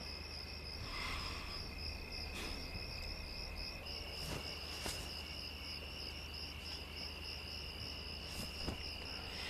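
Crickets chirping in a fast, even pulse, with a second steady insect trill joining about four seconds in and a few faint ticks.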